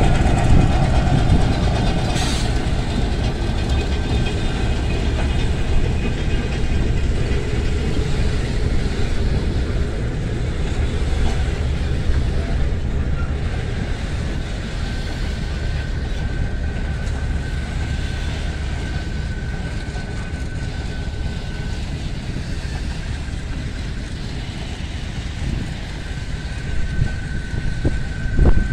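Loaded freight train rolling past: a red diesel locomotive going by at the start, then a long run of laden hopper wagons with a steady rumble of wheels on the rails. A thin high steady tone comes and goes through the second half.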